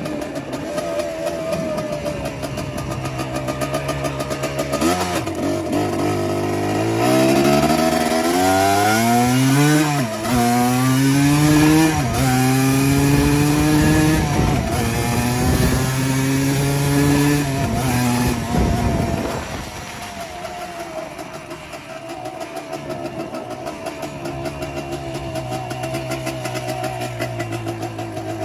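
Yamaha Blaster's single-cylinder two-stroke engine accelerating hard through the gears, its pitch climbing and dropping sharply at each upshift several times, then easing off about two-thirds in to a lower, steady run. The engine has a freshly rebuilt top end and is shifted without the clutch.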